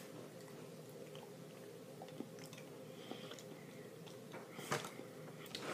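Faint chewing of a jelly bean over a low steady room hum, with one brief louder noise near the end.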